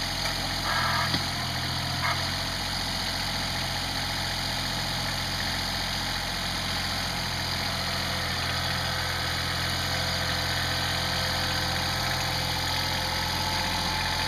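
Kubota compact tractor's diesel engine running steadily at idle. A couple of brief knocks sound in the first two seconds.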